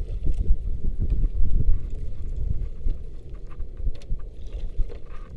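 Irregular knocks and thumps over a low rumble, the sound of handling and movement aboard a small fishing boat, with a few sharp clicks.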